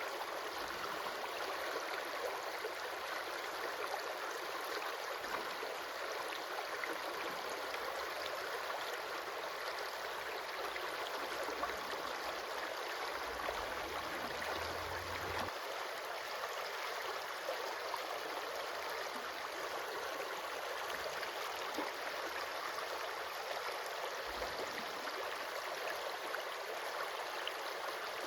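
Stream water flowing steadily, an even rushing hiss with no change in level.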